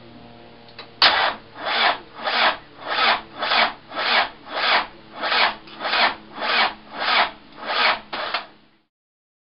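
Starter motor cranking the Tdi diesel slowly and laboriously: a run of about thirteen rasping bursts about 0.6 s apart, one per compression stroke, without the engine firing.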